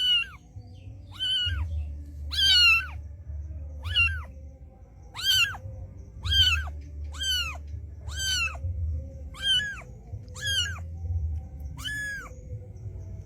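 A cat mewing over and over, about one short high-pitched mew a second, each rising and falling in pitch, over a low rumble.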